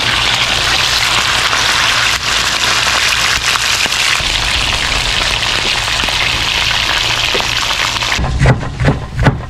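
Whole fish sizzling in hot oil in a cast-iron skillet, a steady, loud frying hiss. A few thumps come near the end.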